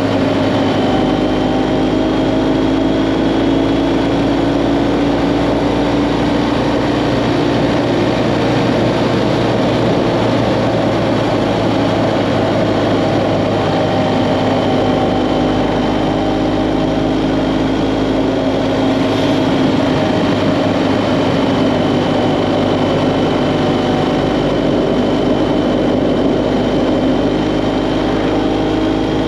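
BMW GS Adventure motorcycle engine running steadily at road speed, its pitch shifting slightly, with wind and road noise on the microphone.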